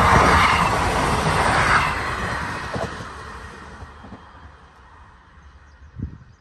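Class 158 diesel multiple unit running away from a level crossing: its engine and wheel-on-rail rumble is loud at first, then fades steadily into the distance over a few seconds. A single short low thump comes near the end.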